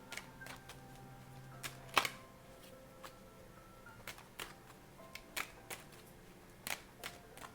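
Quiet background music with held notes, under scattered sharp clicks and taps of tarot cards being handled, the loudest about two seconds in.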